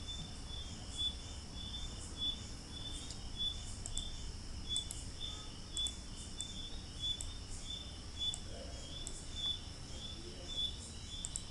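Faint, steady insect-like chirping, two or three short high chirps a second, with a few fainter, higher chirps scattered through.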